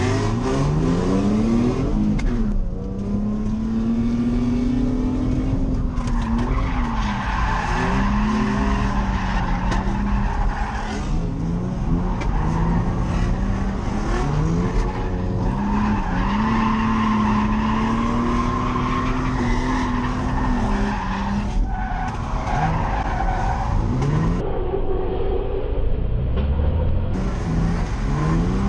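A drifting Nissan 350Z's V6 engine held at high revs for long stretches, dipping and climbing back several times, with tyres skidding.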